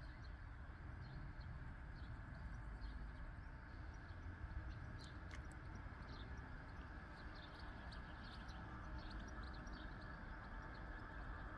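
Small birds chirping faintly in short, scattered calls over a steady low rumble.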